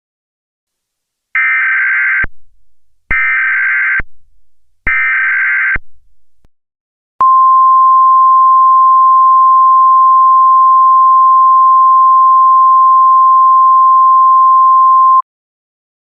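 Emergency Alert System header for a National Weather Service tornado warning. Three short bursts of warbling digital data tones, each about a second long, are followed by a single steady attention tone held for about eight seconds that cuts off sharply.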